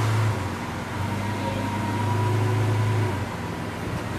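Vehicle engine idling steadily, a low hum that drops away briefly just after the start and fades out a little after three seconds.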